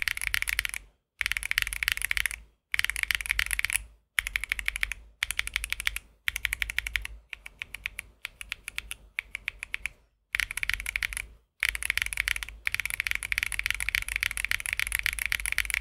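Typing on a mechanical keyboard with Sea Salt tactile switches: fast, clacky keystrokes in dense runs of one to three seconds, broken by short silent gaps.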